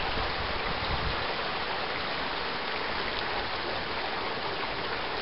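Heavy thunderstorm rain pouring down in a steady, dense hiss, with a brief low rumble in the first second.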